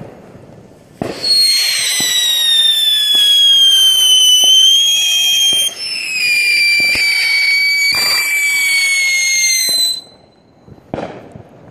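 Whistling ground firework spraying sparks and giving off a loud, shrill whistle for about nine seconds. The pitch slides slowly down, breaks and restarts about halfway, then cuts off suddenly, with a few sharp cracks along the way.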